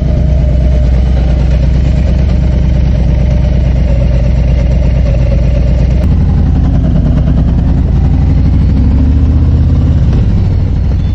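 Harley-Davidson motorcycle's V-twin engine running, loud and low-pitched, with an abrupt change in its note about six seconds in and a fade at the end.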